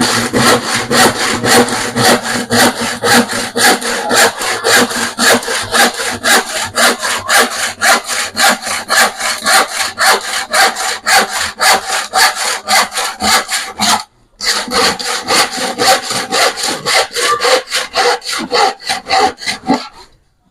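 Hand saw cutting plywood in rapid back-and-forth strokes, about three a second, with a short pause partway through before the sawing resumes.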